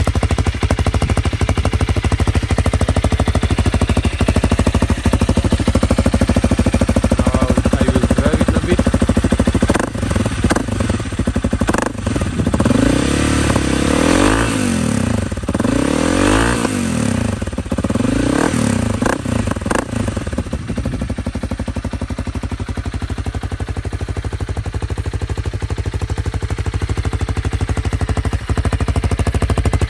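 Honda CRF300L's single-cylinder four-stroke engine idling through an Arrow X-Cone slip-on exhaust, with a fast, even firing beat. Around the middle it is revved in several quick throttle blips, each rising and falling back, then it settles to idle again.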